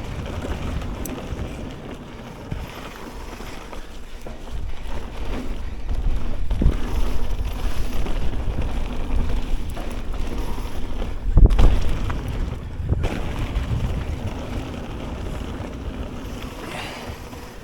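Wind buffeting the action camera's microphone over the rumble of a Ragley BigWig hardtail mountain bike riding a trail, tyres rolling and the bike rattling. A loud thump about two-thirds of the way through.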